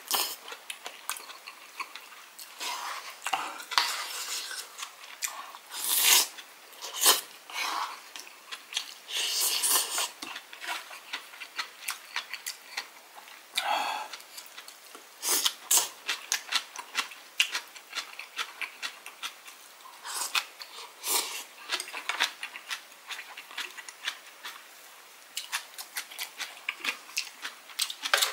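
Close-up eating sounds: a man chewing mouthfuls of dumpling hot pot and fresh cabbage geotjeori, with a wooden spoon and chopsticks clicking against the bowls in irregular short clicks.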